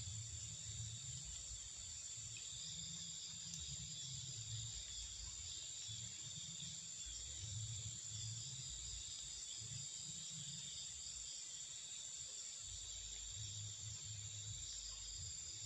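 Steady outdoor insect chorus of crickets: several unbroken high-pitched trills held throughout, over an uneven low rumble.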